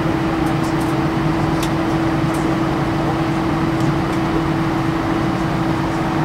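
Steady cabin hum of an Airbus A320 with its engines running at idle as it taxis, with one steady droning tone running through it.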